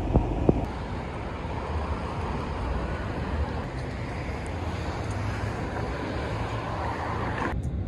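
Steady city street noise with traffic, after two sharp clicks near the start. The sound changes suddenly near the end.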